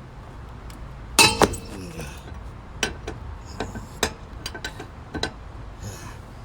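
Metal tools clanking and clinking: a loud double clank a little over a second in, then scattered lighter metallic clinks and knocks.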